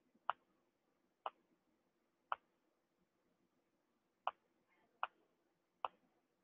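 Computer mouse button clicking six times, single sharp faint clicks spaced about a second apart, with two coming closer together near the end.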